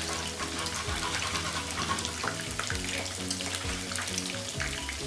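Background instrumental music, a melody of held notes over a faint even hiss.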